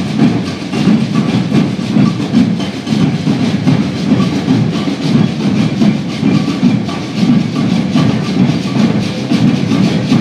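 Maracatu percussion group playing a steady, continuous rhythm: deep alfaia bass drums pulsing, with rattling snare drums and shakers over the top.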